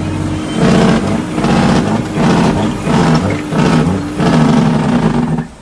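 International truck's diesel engine running, heard from inside the cab while the driver works the 18-speed gearbox, its note surging and dipping over and over. The sound cuts off abruptly near the end.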